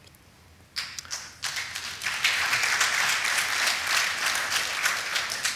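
Audience applause. A few scattered claps come about a second in, then quickly build into dense, steady clapping that starts to die away near the end.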